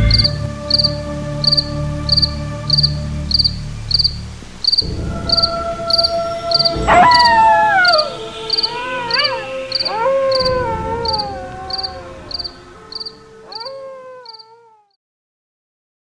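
Night-ambience sound effect: a cricket chirping steadily, about two chirps a second, over a low drone that drops away about five seconds in. Several long howls falling in pitch join about seven seconds in, and everything fades out near the end.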